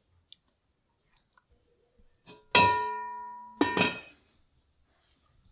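Heavy lid of a small black cast-iron pot set down on the pot about halfway in, with a clank that rings on for about a second. A second clank and ring follow as it is knocked into place.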